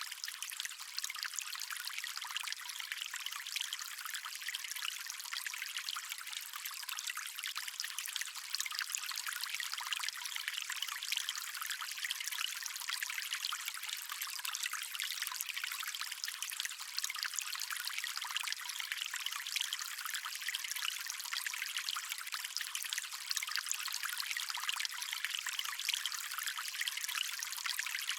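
Water stream flowing steadily, a constant trickling, splashing babble that sounds thin and bright, with no low rumble.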